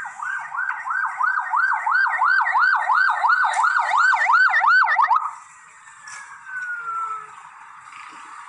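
Electronic vehicle siren on a fast yelp, its pitch sweeping up and down about four times a second, cutting off a little after five seconds in and followed by one slower falling tone.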